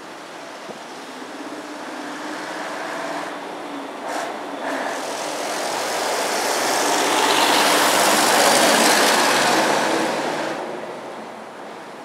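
A road vehicle passing close by: tyre and engine noise swells to a peak about eight seconds in, then fades away. There is a brief knock about four seconds in.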